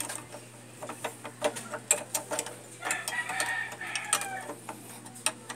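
Scattered clicks and taps of a screwdriver and brake master cylinder parts being handled at a motorcycle handlebar. About three seconds in, a chicken calls for about a second.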